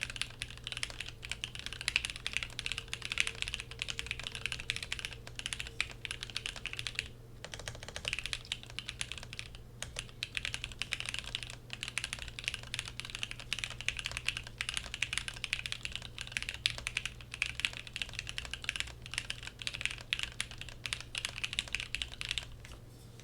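Fast, continuous typing on a custom mechanical keyboard: a Praxis R2 with lubed Gateron Mini switches in a polycarbonate plate, under CRP keycaps. A dense run of key clacks breaks briefly twice about a third of the way in and stops just before the end.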